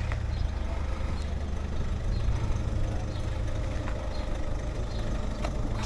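Steady low rumble of wind and tyres while riding a Propain Ekano 2 e-mountain bike, with a few sharp rattles from the bike, about a second in and near the end.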